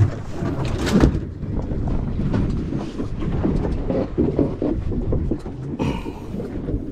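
Wind buffeting the microphone as an uneven low rumble on an open boat deck, with a couple of sharp knocks of handling near the start.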